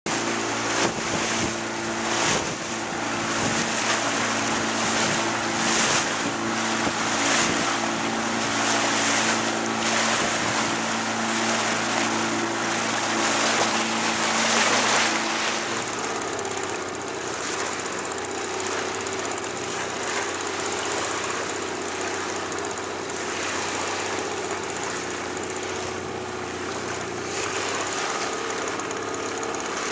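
A small boat's motor running steadily, with water rushing past the hull; the motor's note changes about halfway through.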